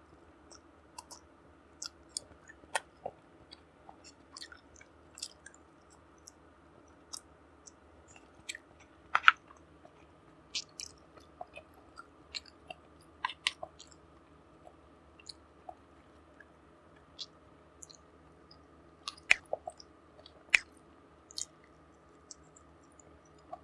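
A person chewing food close to the microphone, with irregular sharp mouth clicks and smacks, loudest about nine seconds in and again around twenty seconds, over a faint steady hum.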